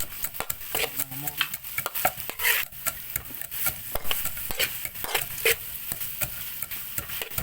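Food stir-frying in a pan: a spatula scraping and knocking against the pan in quick, irregular strokes over a steady sizzle.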